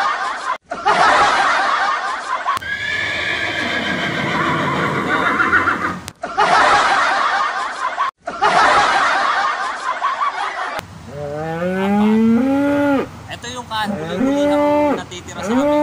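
Comic animal-laugh sound effects: two long stretches of dense cackling laughter, with a whinny-like sliding cry between them. Then, for the last five seconds, a run of short low moo-like calls, each rising, holding and falling, about one a second.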